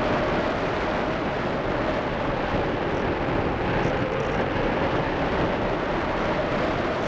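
In-flight sound aboard a radio-controlled model ASW 15 sailplane: a steady rushing noise with a faint, even hum running through it.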